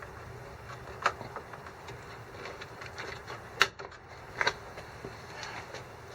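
A few sharp clicks and knocks of parts being handled, the loudest about three and a half seconds in, over a steady low background hum.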